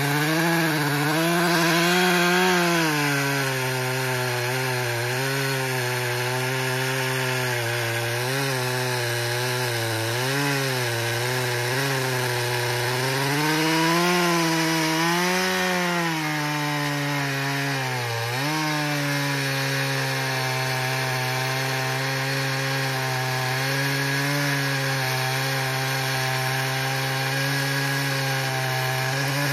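Echo CS-590 TimberWolf two-stroke chainsaw with a 24-inch bar running at full throttle through a poplar log. Its pitch sags and recovers as the chain loads up in the cut, with one sharp dip about two-thirds of the way through, then it runs steady.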